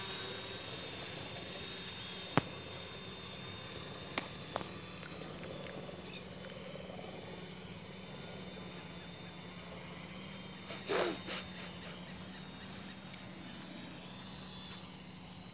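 Steady outdoor background hiss with a low, even hum underneath, a few faint clicks, and a brief louder rustle about eleven seconds in.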